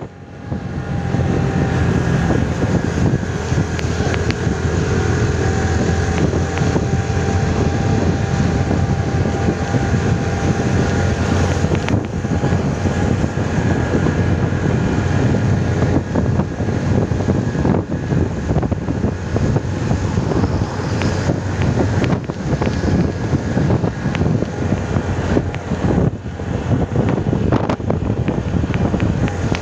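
Motorcycle engine running steadily while riding at road speed, a constant hum with wind buffeting the microphone and road noise.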